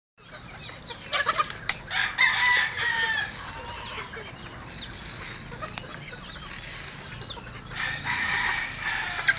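Flock of gamefowl chickens crowing and clucking while feeding. There are two louder bouts of calls, one a couple of seconds in and another near the end.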